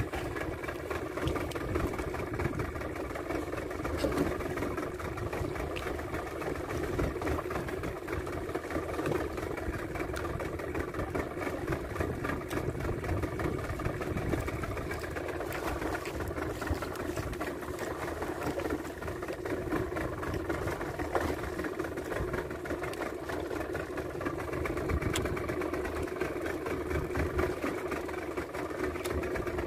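Boat engine running steadily: an even drone with a held mid-pitched tone over a low rumble.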